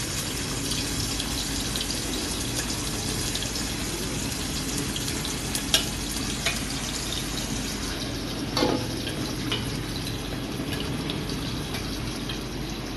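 Steady hiss of a fish and eggplant curry bubbling in a pot on a gas burner, with a few sharp clinks of a spatula against the pot, the loudest about six seconds in.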